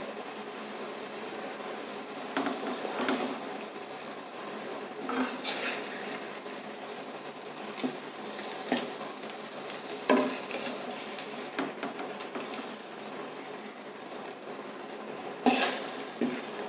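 A metal spoon scraping and clinking against a metal kadai at irregular moments as stuffed okra is stirred and turned in masala powder, over a steady low background hiss.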